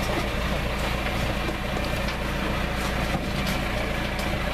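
Tractor engine running steadily with an even low hum, with a few light clicks over it.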